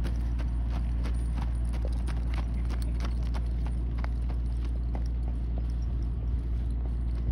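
Horse's hoofbeats on a hard dirt road, a quick run of clip-clop strikes that grow sparser and fainter after about four seconds as the horse moves away. A steady low hum runs underneath.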